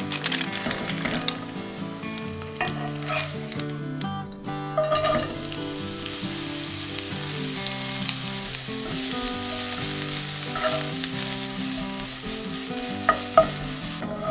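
Oil sizzling in a non-stick frying pan: fried eggs first, then, after a brief break about four seconds in, julienned carrots sizzling as they are stir-fried. A few sharp spatula knocks on the pan come near the end.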